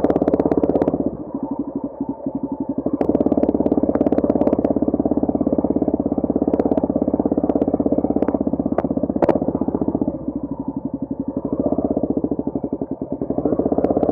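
Motorcycle engine running with a rapid, steady firing pulse, heard muffled and distorted, with a few sharp clicks. It eases off twice, about a second in and again near the end, as the throttle drops, then picks back up.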